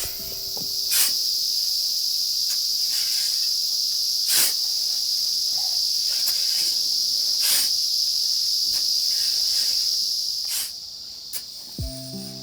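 Insects droning steadily at a high pitch, with a short scrape or knock about every three seconds. The drone drops away near the end.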